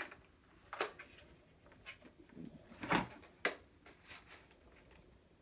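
Scattered plastic clicks and knocks from a Nerf Modulus Regulator's stock being handled and pulled at, about six in all, the loudest about three seconds in.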